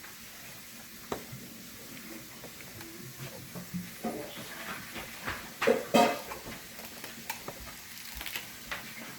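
Light clicks, knocks and clatter of hard parts being handled, with a louder clatter about six seconds in.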